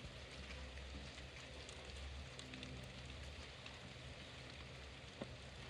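Rain falling steadily on a terrace: an even patter with scattered sharper ticks of single drops, over a faint low steady hum.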